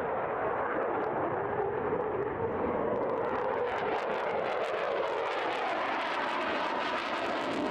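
F-16 fighter jet's engine heard in flight as a steady jet rush. It turns brighter about three seconds in, and a tone slides down and back up in the second half, as if the jet is passing.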